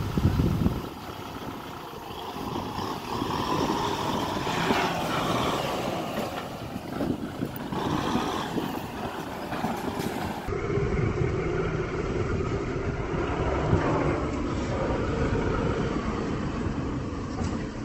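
Kubota M6040SU tractor's diesel engine running under load as it works through loose sandy soil, the revs swelling and easing several times.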